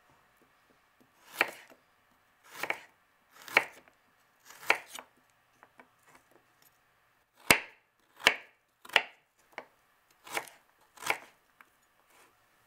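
Kitchen knife chopping peeled ginger on a cutting board: about nine separate sharp chops, unevenly spaced, with a pause of a couple of seconds in the middle.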